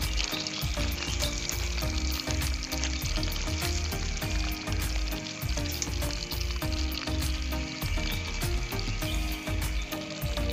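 Whole gutted fish sizzling steadily as they fry in hot oil in a metal wok over a wood fire. Background music with a pulsing beat plays over the sizzle.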